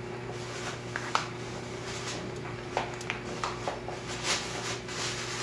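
Steady low hum and hiss, with a few short sharp ticks and clicks scattered through the middle.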